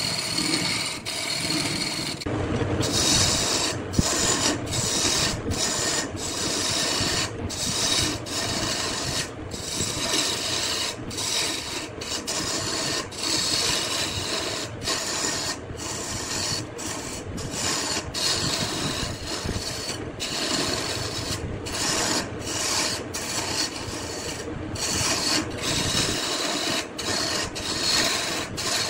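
A wooden workpiece spinning on a wood lathe with a tool or abrasive held against it: a continuous rasping hiss, broken by frequent short gaps as the contact lifts off and comes back.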